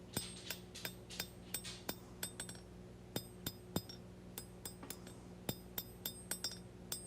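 Hand hammer striking a hot high-carbon steel knife blade on an anvil, forging the bevels: a steady run of fairly light, ringing blows, about three a second, over a faint steady hum.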